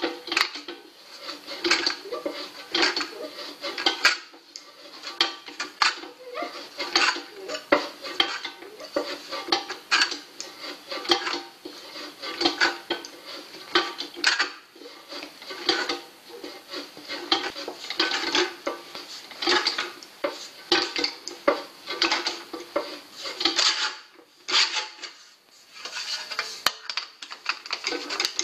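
A hand-lever metal shrinker/stretcher working a strip of aluminium: a rapid, uneven series of sharp metallic clacks as the jaws bite and release the metal, with a short lull near the end. It is shrinking and stretching the strip's flange to curve it into a mudguard.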